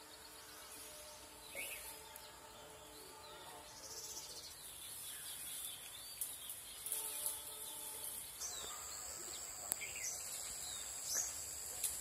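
Quiet outdoor ambience with scattered short bird chirps; about eight seconds in a steady high-pitched hiss joins.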